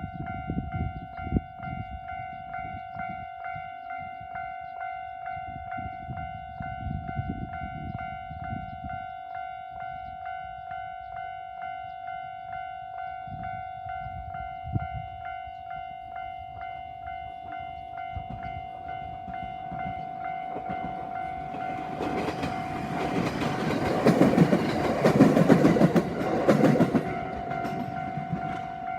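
Level-crossing warning bell ringing in a steady, even, rapid rhythm as a local passenger train passes over the crossing. The train's wheels rumble and clatter on the rails, building from about twenty seconds in and loudest for about five seconds near the end, while the bell keeps ringing.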